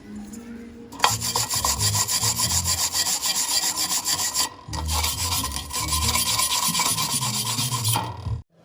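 Arc welding on thin steel square tube: a dense, steady crackle. It runs as two beads of about three and a half seconds each, with a short break between them.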